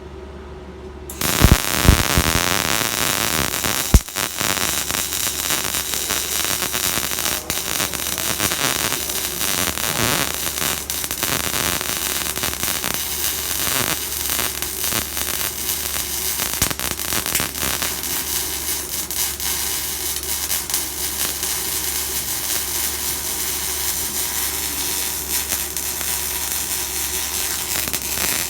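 Electric arc welding: the arc strikes about a second in and then crackles and hisses steadily.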